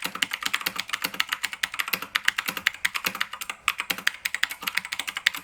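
Typing on a Keychron K2 mechanical keyboard with Keychron Blue switches: fast, uneven key clicks, loud and clicky.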